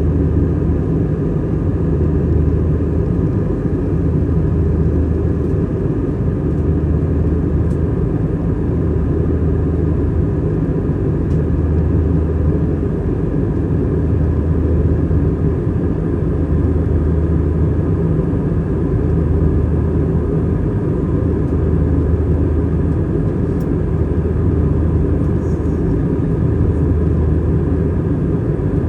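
Airbus A320 cabin noise from a window seat: a steady engine and airflow drone with a few steady tones and a low throb that swells about every two seconds.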